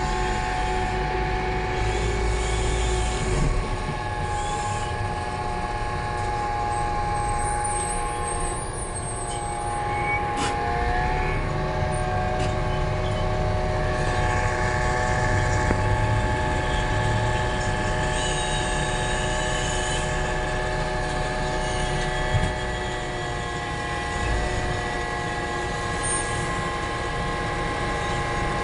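Isuzu minibus engine and road noise heard from inside the passenger cabin: a steady droning hum. The engine's pitch dips slightly twice, about ten seconds in and again near the end.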